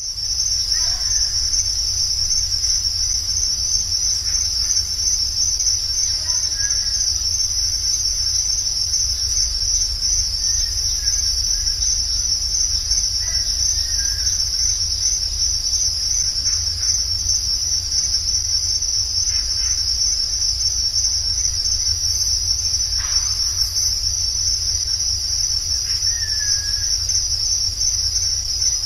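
Night-time field recording from a recorder left in a wooded tree line: a steady, high, rapidly pulsing insect chorus over a low hum, with a few faint short calls now and then.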